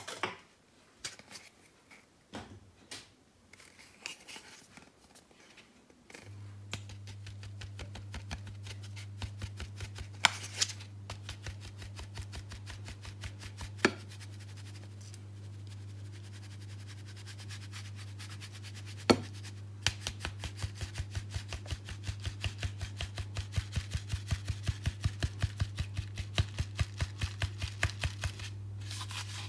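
A utensil beating against a mixing bowl in quick, regular clicks, about three to four a second, with a steady low hum joining about six seconds in.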